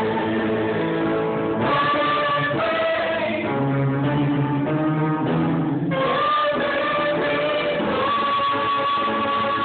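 Live gospel worship song: a small group of singers holding long notes into microphones, accompanied by an upright piano.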